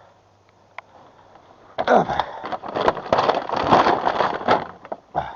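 A freshly caught burbot being landed into the boat: a burst of splashing and thrashing, many rapid irregular strokes. It starts about two seconds in and lasts nearly three seconds.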